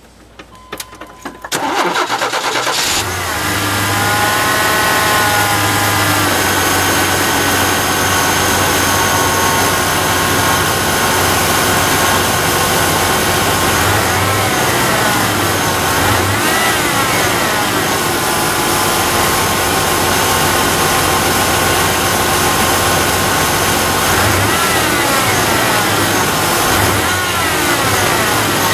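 Car engine cranked and started, then running with a loud whine from a newly fitted remanufactured power steering pump, which the owner says sounds like bad bearings. Three times the whine rises and falls in pitch as the engine speed changes.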